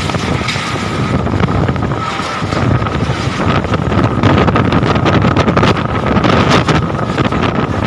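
Storm noise: strong wind buffeting the microphone, with a dense patter of many small impacts that grows heavier from about halfway in. A faint steady hum runs underneath.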